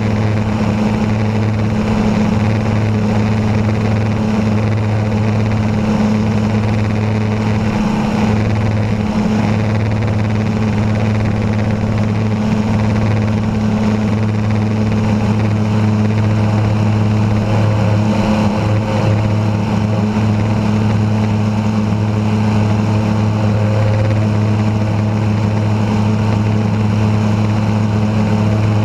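Aerotrek A220 light aircraft's Rotax 912 flat-four engine and propeller running at takeoff power through the takeoff run and climb-out, a steady low drone with a rush of wind noise on the microphone.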